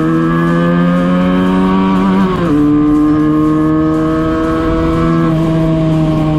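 Benelli 302S parallel-twin engine and exhaust under hard acceleration on a top-speed run. The engine note climbs in pitch, drops sharply at an upshift about two and a half seconds in, then climbs again more slowly.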